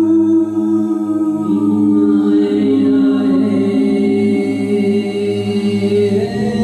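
Several voices singing long, wordless held notes together in improvised a cappella harmony over a low steady drone, the pitches shifting to new notes about two seconds in and again near the end.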